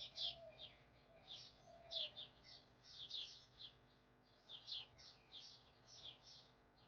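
Small birds chirping: short high chirps repeated several times a second in loose runs, with a lower, fainter warbling call in the first two seconds.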